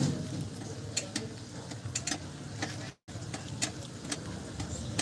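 Irregular light metallic clicks and ticks from a van's rear drum brake being turned and worked by hand while the brake shoes are adjusted, over a low steady hum. The sound cuts out for an instant about three seconds in.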